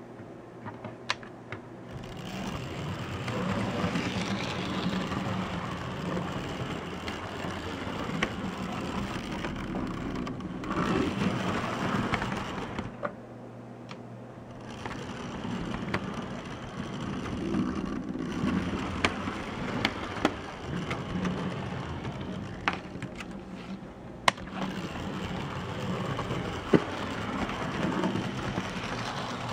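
1960s-built HO-scale model steam switcher locomotive running along its track: the small electric motor and gearing whirr steadily, swelling and fading, with occasional sharp clicks. The sound drops away briefly partway through.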